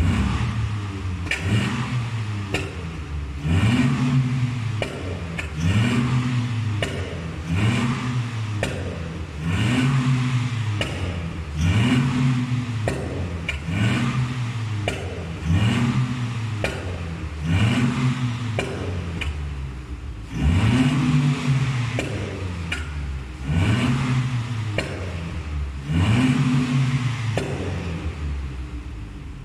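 Proton Inspira's 1.8-litre 4B10 four-cylinder blipped again and again through a valve-controlled muffler, about one rev every two seconds. Each rev is followed by pops and crackles from the exhaust as the revs fall, which is the effect of a pops-and-crackles ECU remap.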